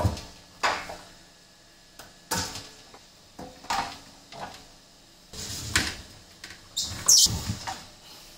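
Ball-lock disconnects being pulled off a Cornelius keg's posts and the keg lifted out of a chest-freezer keezer: a series of separate clicks and knocks, a short noisy scrape about two-thirds through, and a high squeak near the end.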